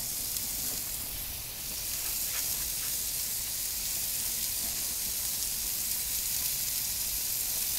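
Burger patties sizzling on a cast-iron Grizzler plate inside an Ooni Koda 16 gas pizza oven: a steady, even, high hiss.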